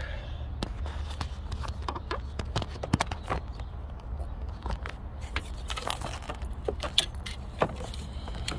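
Scattered metallic clinks and ticks as hands and tools work the mounting bolt on a car alternator's bracket, over a steady low hum.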